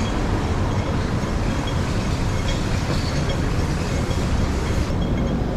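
Steady city street noise with a heavy low rumble and faint scattered ticks. The sound changes abruptly about five seconds in.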